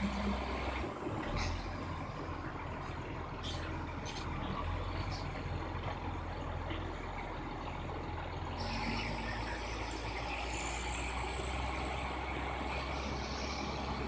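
Diesel engines of large Caterpillar crawler bulldozers running under load: a steady low drone mixed with track and machine noise. The higher-pitched part of the noise grows stronger a little past halfway.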